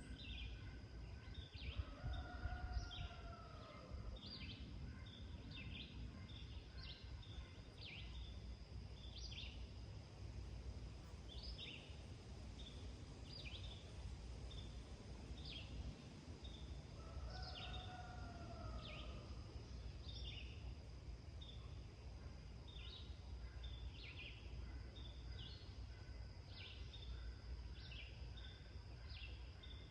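Dawn farm chorus: birds give short high chirps over and over, about one a second. A rooster crows faintly twice, once near the start and once about halfway through, over a steady low background rumble.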